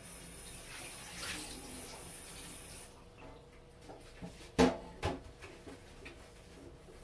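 Kitchen tap running into the sink while a new pot is washed with detergent; the water stops just under three seconds in. Then two sharp knocks, the pot handled in the sink.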